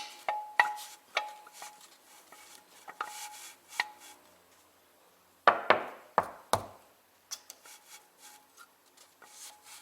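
Metal clicks and clanks from a trolley jack and jack stands being worked under a car. Ringing clicks about every half second at the start, then a louder cluster of three heavy knocks a little past halfway.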